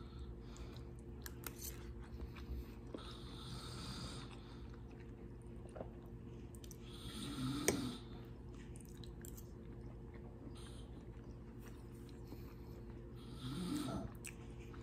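Close-up chewing of a mouthful of food over a steady low hum, with a couple of louder moments, one with a sharp click about halfway through.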